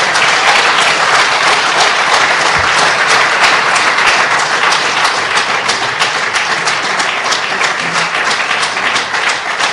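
A roomful of people applauding, many hands clapping at once, easing off slightly toward the end.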